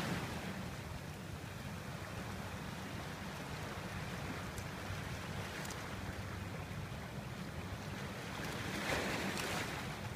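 Sea surf washing onto a pebble beach, a steady rush with wind on the microphone, swelling briefly near the end.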